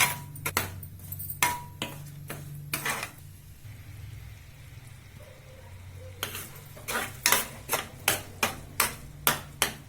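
A spoon scraping and knocking against a kadhai while jaggery is stirred as it melts in a little water. A run of strokes for about three seconds, a quieter pause, then faster strokes of about three a second from about six seconds in, over a low steady hum.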